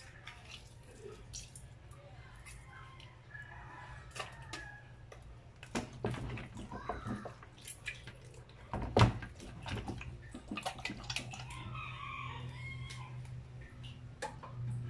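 Wet squelching and dripping as hands rub and turn a raw whole chicken in a plastic basin, with clicks and knocks against the basin, the loudest about nine seconds in. A rooster crows in the background, over a low steady hum.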